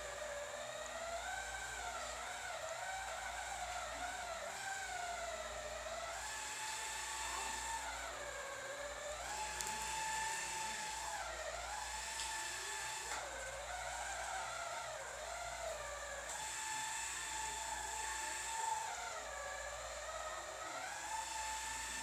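Small stick vacuum's motor whining steadily as it is pushed over a rug, its pitch dipping and rising every few seconds.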